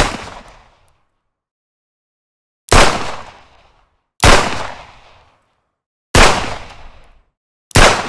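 Revolver gunshot sound effect: five single shots, one at the very start and then about every one and a half to two seconds, each a sharp crack with a reverberant tail fading away over about a second.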